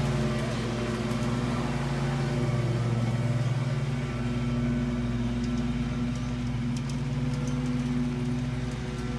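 Steady low mechanical hum like a running engine, with a few faint high clicks in the second half.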